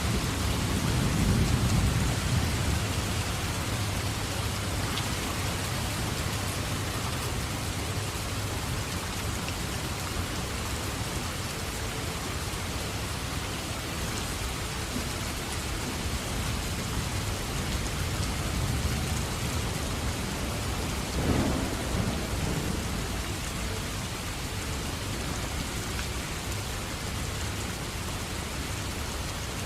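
Steady rain falling in a thunderstorm, with thunder rumbling in the first couple of seconds and a shorter, sharper clap of thunder about two-thirds of the way through.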